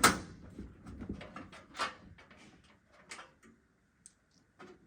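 Knocks and clicks of a computer case's side panel being handled and pulled off: a sharp knock at the start, two more about two and three seconds in, with small clicks between.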